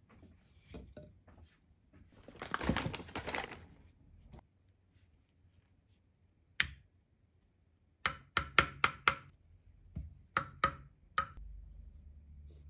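A wooden spoon knocking sharply on the rim of a wooden bowl: a quick run of five taps, then three more, as yogurt is knocked off into the bowl. Earlier there is a brief scraping rustle.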